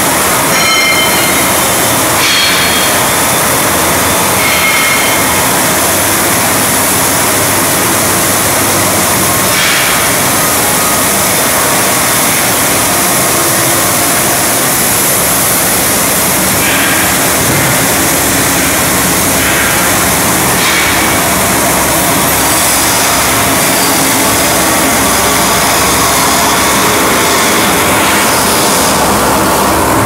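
Steady, loud rushing noise of heat-treatment shop machinery around a gas carburising furnace and its quench tank, with a few short high squeals in the first few seconds.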